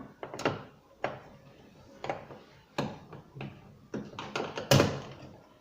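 Parts of a washing machine's brake and drive assembly being handled and pulled apart by hand: a string of separate clicks and knocks, the loudest a little before the end.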